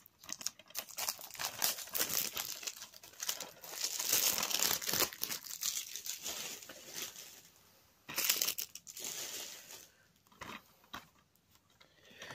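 Plastic shrink-wrap crinkling and tearing as it is pulled off a DVD case, in irregular bursts. It is loudest a few seconds in, with another burst around eight seconds, and thins out near the end.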